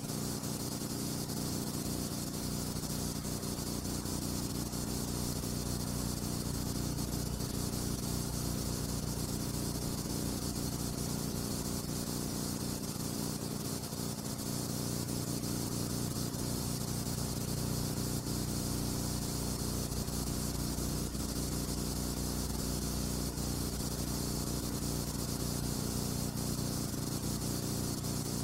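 Steady hiss with a low, even hum underneath, unchanging throughout and with no speech or music: the background noise of a silent film's soundtrack.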